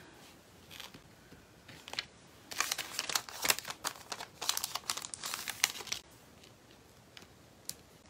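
A crinkly packet or wrapping being handled: a run of crinkling for about three and a half seconds in the middle, with a few light clicks before and after.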